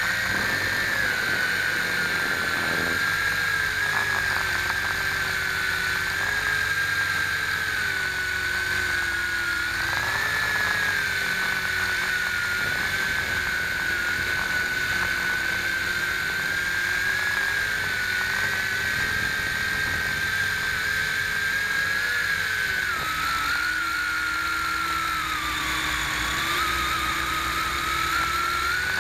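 WLtoys V262 quadcopter's motors and propellers whining steadily, as picked up by the camera on the craft itself. The pitch wavers with the throttle, drops a little over twenty seconds in and climbs again near the end.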